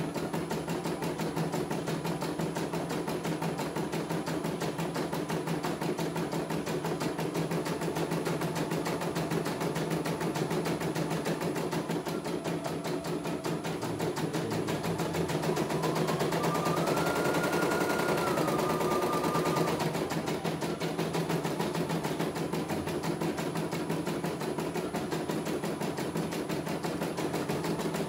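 CNY E900 computerized embroidery machine stitching a design: a fast, even clatter of the needle bar over a steady hum.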